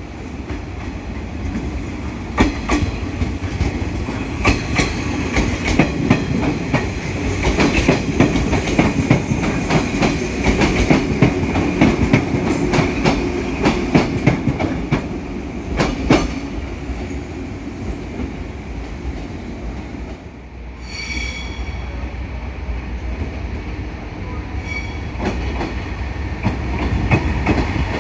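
Train running through a station: the wheels click rapidly over rail joints and points, with a steady high wheel squeal and a low rumble. The clicking dies away about two-thirds of the way in, and a brief high tone sounds shortly after.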